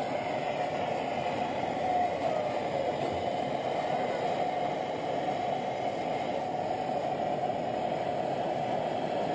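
Butane torch burning steadily, heating a lower control arm bushing to free it from the arm.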